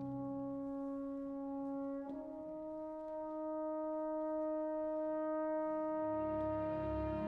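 Symphony orchestra playing: long held notes that step up to a higher pitch about two seconds in and are then held, with a low part coming in near the end.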